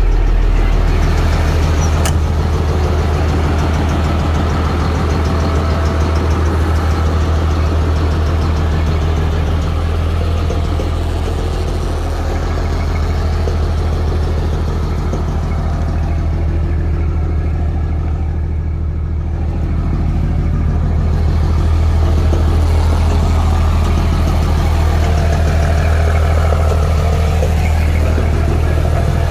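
2007 Peterbilt 335 dump truck's diesel engine idling steadily.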